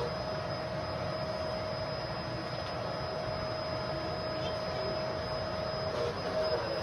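Bissell MultiClean Allergen Pet upright vacuum cleaner running steadily: a constant motor whine over an even rush of airflow.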